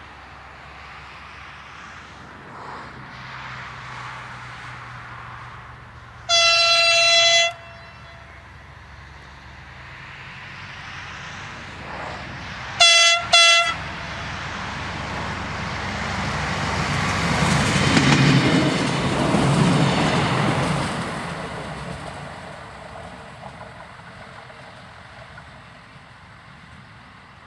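A train sounds one long warning blast, then about six seconds later two short blasts. It then passes with a swelling rumble that is loudest a few seconds later and fades away.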